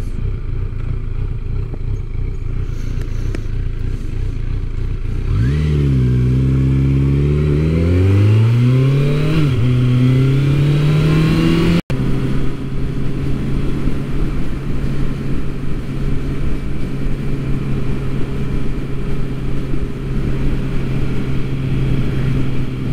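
Motorcycle engine heard from the rider's seat under wind rush. After a few seconds the engine note climbs as the bike accelerates, drops once at a gear change, then climbs again. After a brief cut it settles into a steady cruising drone at constant pitch.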